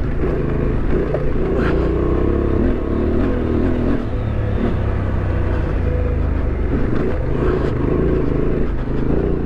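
A Honda Transalp 750's parallel-twin engine running at low speed off-road, its revs rising and falling a little, with a few faint knocks from the bike going over the rough ground.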